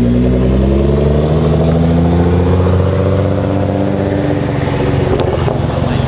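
Mitsubishi Lancer Evolution VIII's turbocharged four-cylinder engine pulling under acceleration, its pitch rising for about three seconds and then holding steady.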